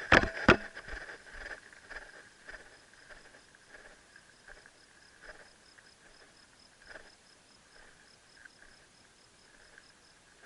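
Insects chirping steadily in the field, with a faint high pulse repeating two or three times a second. Two sharp knocks open it, followed by scattered light taps and rustles that fade away.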